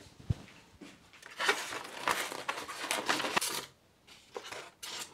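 Moulded polystyrene packing foam scraping and rubbing as a small foam model plane is worked out of its tray. A sharp knock comes just after the start, then about two seconds of loud scraping rustle, and two short scrapes near the end.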